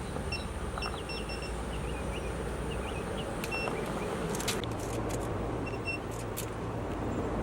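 Digital torque wrench beeping in short, repeated high-pitched groups while H22 cylinder head bolts are tightened on the second torque pass, with a few sharp clicks from the tools.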